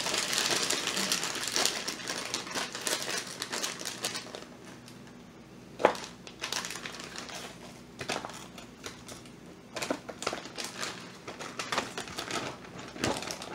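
Plastic bags crinkling and rustling as anchovies are tipped from a plastic bait bag into a Ziploc freezer bag: dense crinkling for the first few seconds, then scattered crackles and clicks, with one sharp click about six seconds in.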